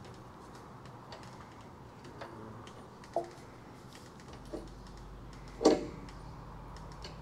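Scattered light clicks and knocks of the CNC mill's cable track and its mounting hardware being handled and set into place, with one sharp knock about 3 seconds in and a louder one near the end. A faint low hum comes in partway through.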